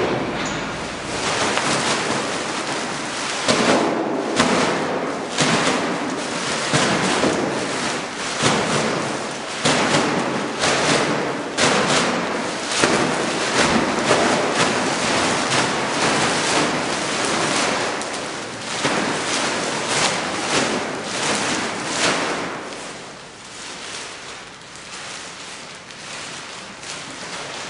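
Blue plastic bag being bunched and gripped by hand, crinkling and rustling loudly with many sharp crackles, then dying down near the end.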